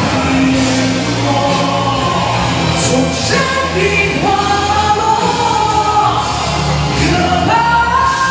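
A man singing a Mandarin pop song into a microphone over backing music, holding long notes, the longest about halfway through.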